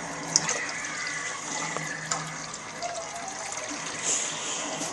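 Water running from a tap into a glass that has overflowed, a steady splashing hiss.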